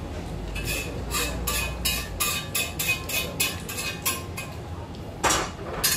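A person slurping noodles from a bowl of soup: a run of quick slurps, about three or four a second, then two louder slurps near the end.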